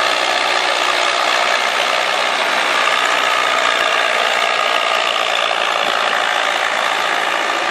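Farmtrac 6055 tractor's diesel engine working hard while pulling a heavily loaded trolley: a steady, loud mechanical running sound.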